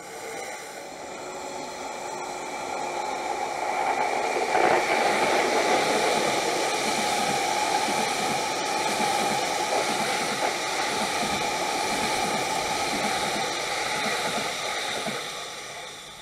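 Electric trains passing on several tracks, a sky-blue-striped commuter train nearest: a steady rush of wheels and rail that swells about four seconds in, holds, and fades near the end.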